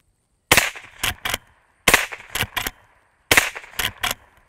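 Three shots from a Marlin Model 39A lever-action .22 Long Rifle rifle, about a second and a half apart. After each shot the lever is worked open and shut, two quick metallic clicks, chambering the next round from the tubular magazine.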